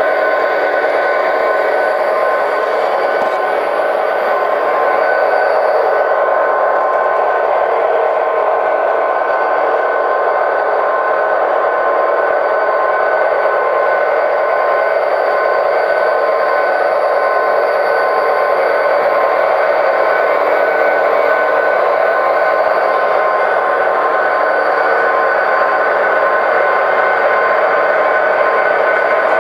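Model diesel locomotives' SoundTraxx Tsunami sound decoders playing a steady diesel engine drone through small onboard speakers as the HO-scale train runs along the track.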